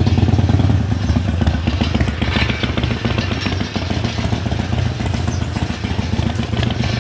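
Motorcycle engine running at low revs close by, a steady low throbbing pulse that is a little louder in the first second.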